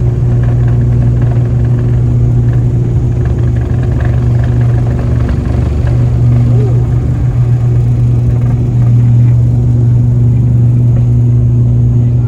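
Cabin noise of an ATR-42 turboprop airliner in flight: a loud, steady low propeller drone with a few higher hums over the rush of engine and air noise.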